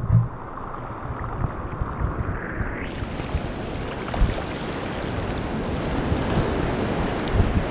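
Shallow ocean surf washing around a wader: a rush of water that swells about three seconds in and then runs on as a steady wash, with a couple of dull low thumps.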